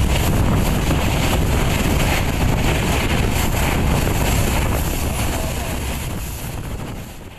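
Passenger train running at speed, a steady rumble of the coach on the rails mixed with wind rushing over the microphone from the open door; the sound fades near the end.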